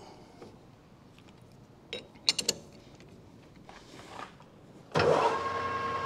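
A few light metallic clicks, then about five seconds in a manual lathe switches on and runs with a steady hum and a constant tone.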